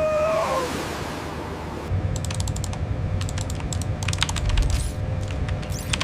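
A wash of sea-like noise with a brief gliding tone, then from about two seconds in, irregular clusters of sharp mechanical clicks over a low steady hum.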